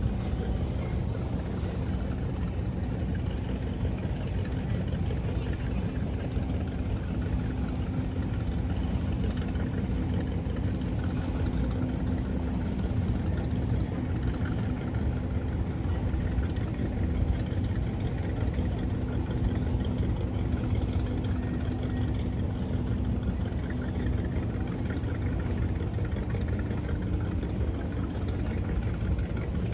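Motorboat engine running steadily under way, with a constant hum that fades out near the end.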